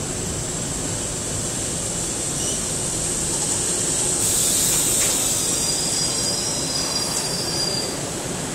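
Hawker Siddeley H4 subway train pulling into an underground station platform, its rolling noise swelling as the front cars pass. A thin high squeal joins in about five and a half seconds in.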